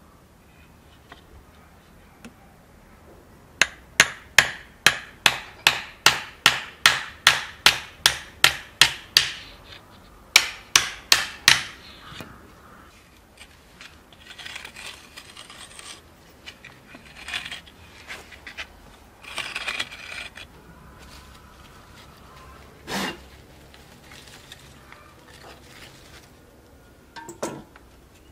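A quick, even run of sharp knocks, about three a second, then after a short pause a faster run of five more. Scraping and rubbing follow, with a single sharp knock later on and another near the end: hand work with a wooden board on hard ground.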